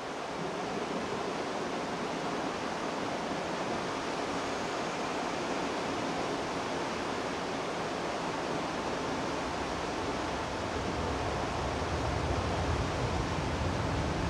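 Steady rushing of river water. A low rumble builds over the last few seconds as the trolley train pulls out across the bridge.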